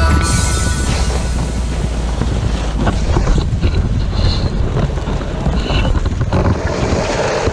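Wind buffeting the action camera's microphone, mixed with an alpine snowboard's edge scraping over packed snow as the rider carves. The rushing noise holds steady throughout.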